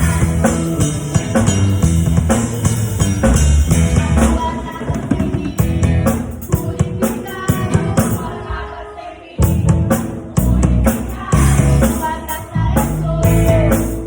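Drum kit played along with a rock-style worship song with singing and band. The music thins out about eight seconds in, then the drums and band come back in together with heavy hits.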